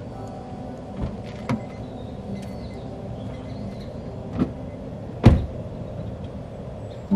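Car door being opened and then shut with one solid thump about five seconds in, after a few lighter clicks and knocks.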